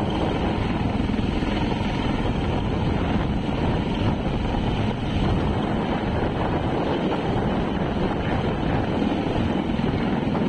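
Wind buffeting the phone's microphone as a steady rushing noise, over surf breaking on the beach.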